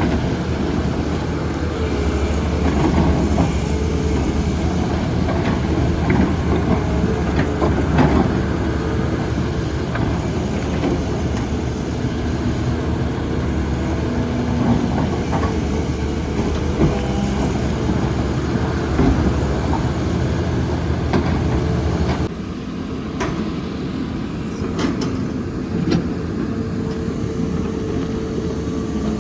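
Diesel excavator engine running steadily under work, with scattered sharp knocks and clanks. The deep engine sound drops suddenly about three quarters of the way through and carries on more quietly.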